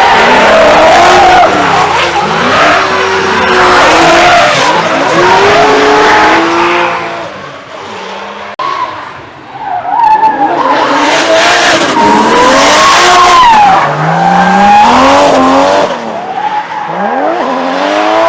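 A drift car sliding on track: its engine revs up and down hard over the screech of spinning tyres. The sound is loud twice, with a dip about eight seconds in, as the car comes past.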